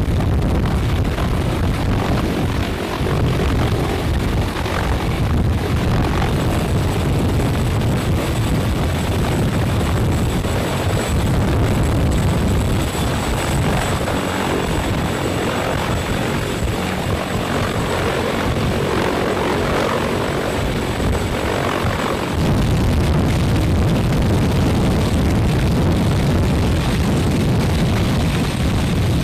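Sikorsky CH-53E Super Stallion heavy-lift helicopter hovering close overhead: loud, steady rotor and engine noise, with a thin high whine through much of the middle.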